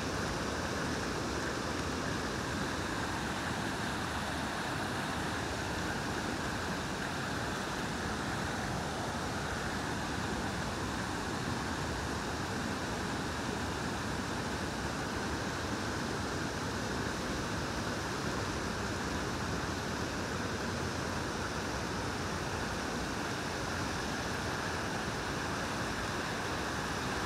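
Steady rushing of river water pouring over a weir, an even hiss with no breaks or single splashes standing out.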